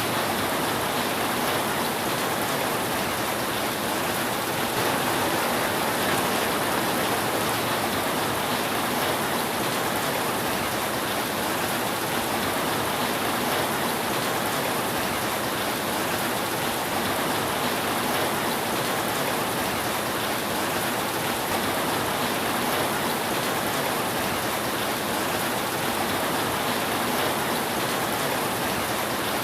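Steady rain falling on a roof, an even hiss without breaks or thunder.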